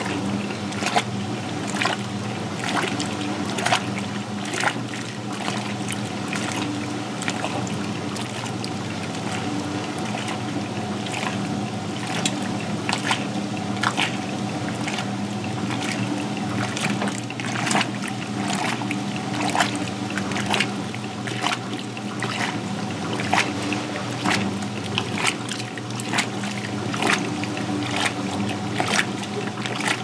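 Vintage Sears Kenmore belt-drive top-load washing machine agitating a load of work pants: the motor and drive hum steadily while the agitator churns the water, with repeated splashing and sloshing in the tub.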